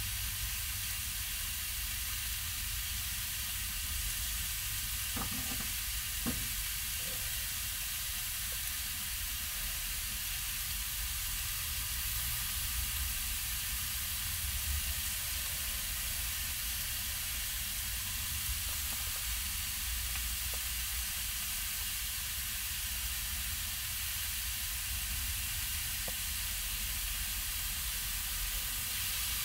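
Food sizzling steadily in a frying pan on a portable single-burner camp stove, with a couple of light knocks about five and six seconds in.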